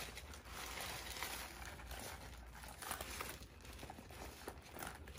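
Tissue paper rustling and crinkling in a gift box as a pebble-leather bag and its pouch are handled and set down, with a few faint taps.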